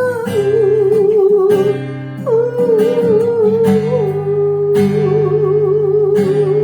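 Voice-and-acoustic-guitar music: a singer holds long notes with a wavering vibrato over strummed guitar chords.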